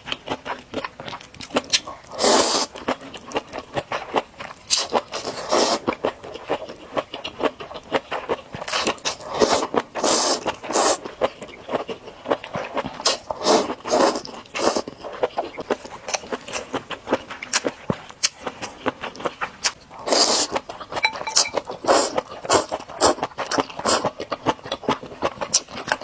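Close-miked eating of spicy noodles: wet mouth clicks and chewing throughout, with several longer slurps of noodles.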